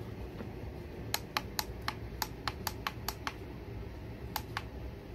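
Buttons on top of a digital mirror alarm clock clicking as they are pressed: about ten quick presses, roughly four a second, then two more near the end, stepping the display through its setting levels. A steady low hum runs underneath.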